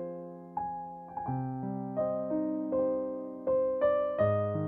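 Background music: a gentle piano tune, single notes struck about every half second and each fading away, over lower notes that change twice.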